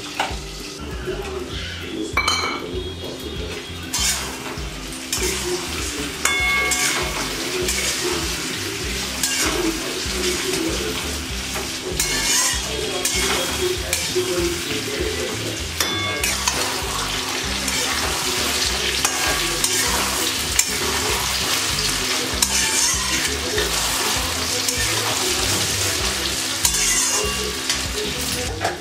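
Potatoes and onions sizzling in hot oil in a steel kadai, stirred with a long metal spatula that knocks and scrapes against the pan several times.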